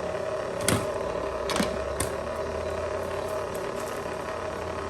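Copper wire stripper working on heavy copper wire: three sharp clicks in the first two seconds, then a low steady mechanical rumble, over a steady background hum.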